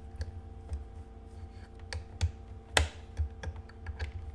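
Scattered light clicks and taps, with one sharper knock about three seconds in, over a faint steady hum.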